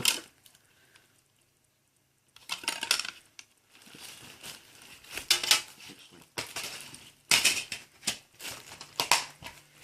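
Plastic and metal parts of an opened Xbox 360 disc drive being handled. Scattered clicks and clatters begin about two seconds in.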